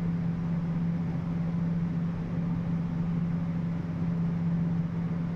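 A machine running steadily: a constant low hum at one pitch under an even hiss.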